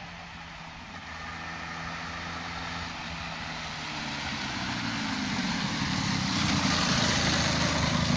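Stock 1997 Yamaha TDR 125's two-stroke single-cylinder engine running hard as the bike gathers speed toward its top speed, growing steadily louder, with a rising rush of wind noise over the engine note.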